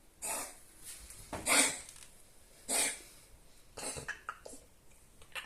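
A poodle coughing from kennel cough. There are repeated separate coughs about a second apart, the loudest about a second and a half in, then a few shorter, weaker coughs around four seconds in.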